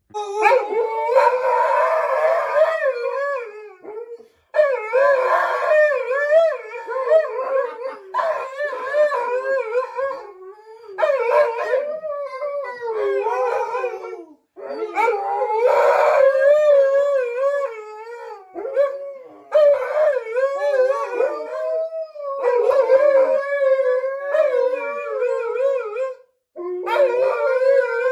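Two Alaskan Malamutes howling together in long, wavering howls that overlap, with short breaks between rounds.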